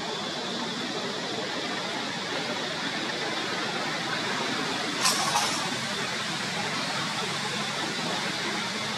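Steady outdoor background hiss with a faint high steady tone, and one brief sharp noise about five seconds in. No crying or calling is heard.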